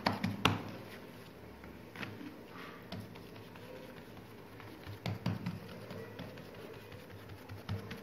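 Hands patting and pressing a ball of soft, oiled yeast dough flat on a floured wooden board: faint soft pats and taps at irregular intervals, one sharper tap about half a second in.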